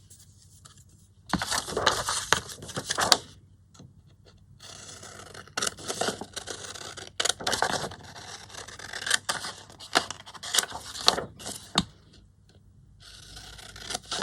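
Sheets of printed paper being handled: stretches of rustling and scraping with sharp little taps, broken by short pauses.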